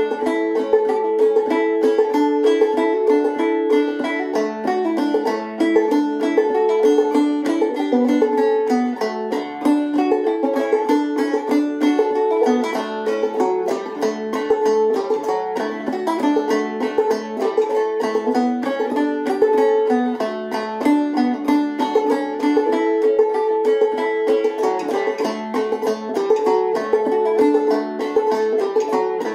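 Solo clawhammer banjo on an Enoch 11-inch Dobson banjo, tuned a-D-A-C#-E (open G capoed up two) and playing a tune in D. Quick, even picked notes, with a high drone note ringing again and again under the melody.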